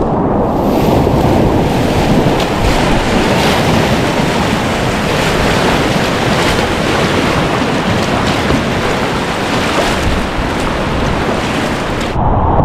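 Rushing river whitewater heard from a kayak, a loud, steady rush of water with wind noise on the camera microphone. Near the end the sound turns dull and muffled.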